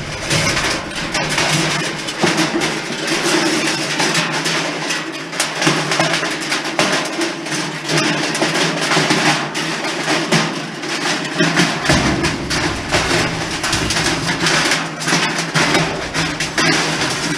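Music with percussion and a steady run of clicks and knocks; a deep bass comes in about twelve seconds in.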